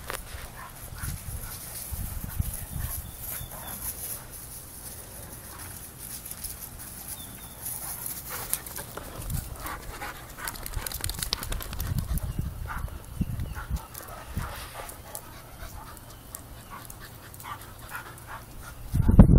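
Dogs playing together, a Weimaraner puppy among them: panting and scuffling, with scattered low bumps. In the middle part, quick clicks of claws on a tile floor.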